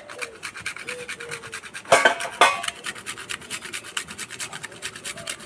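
A nutmeg being grated on a small stainless-steel hand grater: quick, even rasping strokes, several a second. About two seconds in, a brief loud sound rises above the rasping and is the loudest thing heard.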